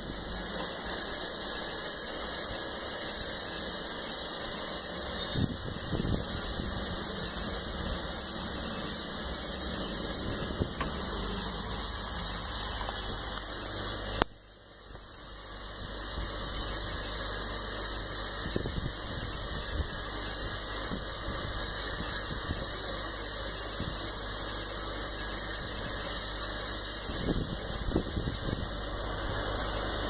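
Hot-air rework gun blowing a steady hiss of hot air while heating the display connector on a phone mainboard. There is a click about halfway through, after which the hiss dips and builds back up.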